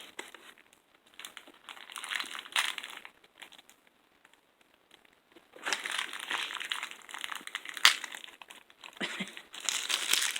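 Plastic toy packaging crinkling as small LOL Surprise pieces are unwrapped by hand: a short spell of crinkling, a brief pause, then steadier crinkling with one sharp click about eight seconds in.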